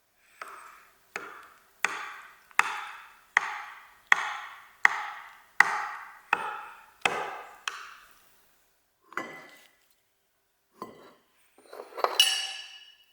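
A series of about ten sharp strikes at an even pace of just over one a second, each ringing out briefly, followed by three irregular knocks, the last the loudest.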